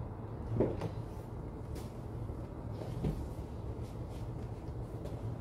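Procharger-supercharged 6.2-litre LT1 V8 of a 2019 Camaro 2SS 1LE idling after a cold start through its MBRP axle-back exhaust, a low steady rumble. A thump about half a second in, and a softer one around three seconds in.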